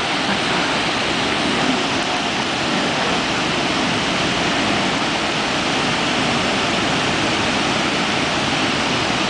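Steady rushing of Brooks Falls and the whitewater rapids below it, an even wash of water noise with no separate events standing out.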